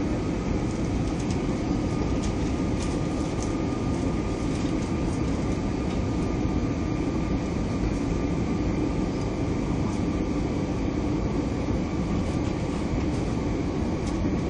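Steady cabin noise inside an Airbus A320 airliner: an even rumble of engines and airflow with a faint steady whine.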